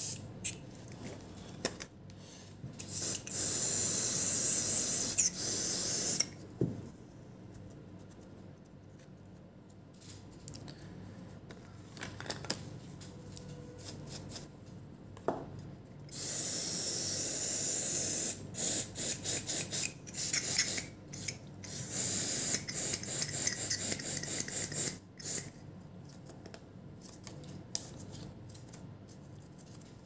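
Aerosol circuit cleaner hissing from a spray can onto a laptop motherboard. It comes in bursts: a few short puffs, a long spray of about three seconds, another long spray about halfway through, then a run of short, rapid puffs.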